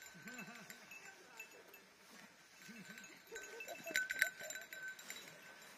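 Goats bleating faintly, short wavering calls heard twice in the first three seconds, with more wavering calls a little after three seconds. Two sharp clicks come about four seconds in.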